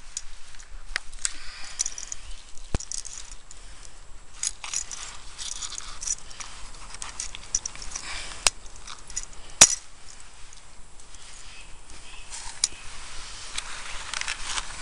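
Close handling of metal fishing tackle: scattered small clicks and metallic clinks with light rustling, the sharpest click about ten seconds in.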